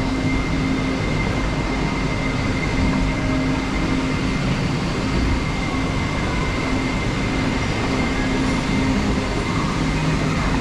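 Water flowing and churning along a log flume channel as a MACK Rides log boat floats through it, a steady rushing rumble with an even hum underneath.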